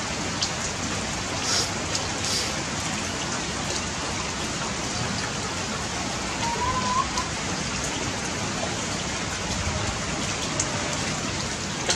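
Steady, even rain noise. A faint short wavering squeak comes about halfway through.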